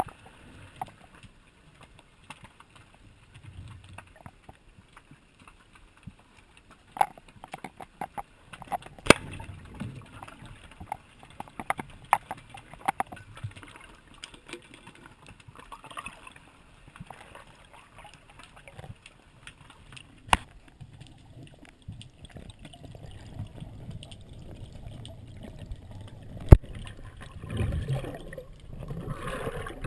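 Underwater sound heard through a diving action camera: scattered sharp clicks and knocks over a low water rumble, with one much louder click a few seconds before the end and churning water near the end as the diver handles his gear and catch.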